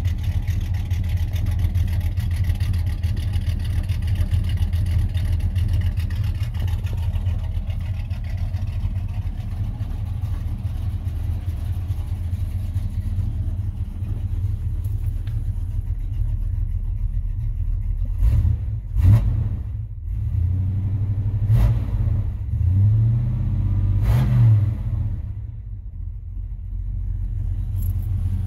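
Cammed 350 small-block V8 of a 1991 Chevy Silverado, fed by a 650 double-pumper carburetor, idling steadily. In the last third the throttle is blipped about four times, each rev rising sharply and dropping back to idle.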